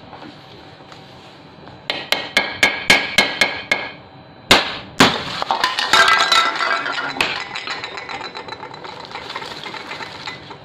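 Green plastic piggy bank being smashed open: a quick run of about nine sharp knocks, then two heavier blows, followed by cracking plastic and the rustle of shards and banknotes that tails off near the end.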